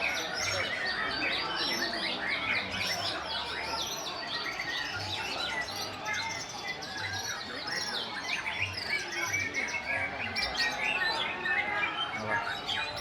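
Several white-rumped shamas (murai batu) singing at once, a dense, overlapping run of varied whistles and chirps without a break.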